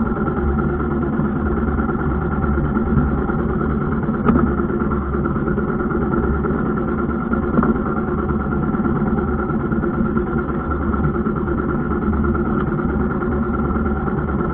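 Boat engine running steadily, with two light knocks about four and seven and a half seconds in.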